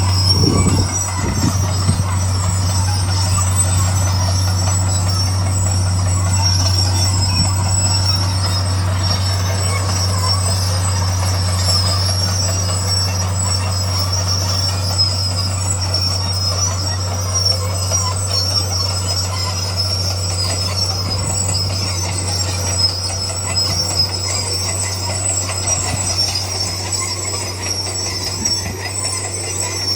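Komatsu D41 bulldozer running steadily: a constant low diesel engine drone, with continuous high squealing from the steel tracks and a few low knocks about a second in.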